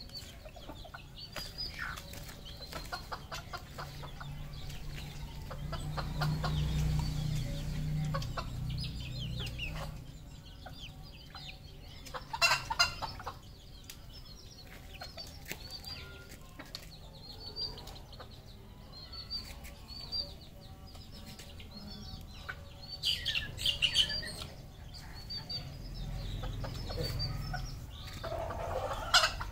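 Red junglefowl clucking and calling, with many short high calls throughout and a few louder calls, one near the middle and others near the end.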